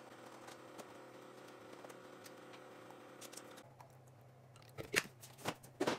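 Keurig single-serve coffee maker brewing into a mug, a steady low hum for about three and a half seconds. After that, a few sharp knocks and clinks near the end as creamer is poured into the mug.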